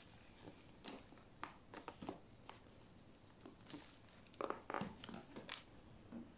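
Faint, scattered rustling and crinkling of a plastic-sleeved product box and its cardboard shipping carton being handled, with a short cluster of louder rustles about four and a half seconds in.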